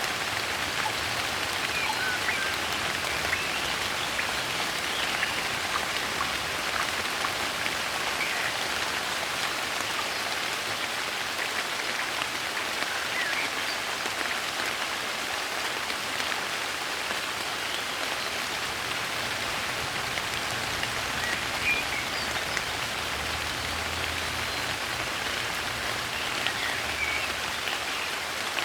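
Soft rain falling steadily, an even hiss of many drops, with a few faint bird chirps here and there.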